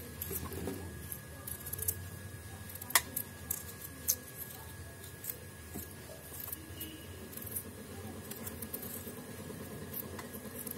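Kitchen knife peeling a raw potato by hand: soft, irregular scrapes and small clicks as the blade cuts the skin, with one sharper click about three seconds in.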